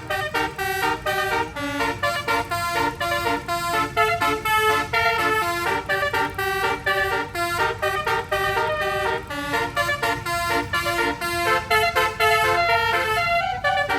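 Multi-trumpet bus telolet air horn playing a fast melody of short, changing notes, over a steady low rumble.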